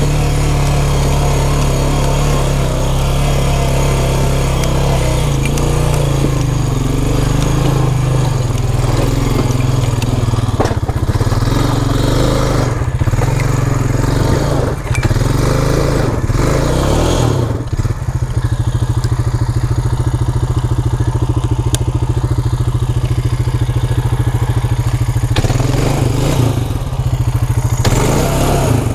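A vehicle engine running at low speed on a rough, steep trail section, the throttle rising and falling, then settling into a steady low putter about two-thirds of the way through.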